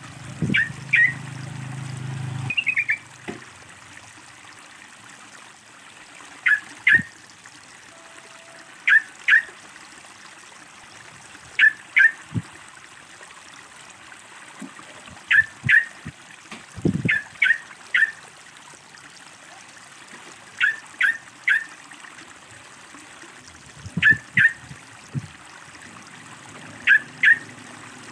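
Yellow-vented bulbul (trucukan) calling repeatedly, short phrases of two or three sharp notes every two to four seconds, over a steady trickle of running water.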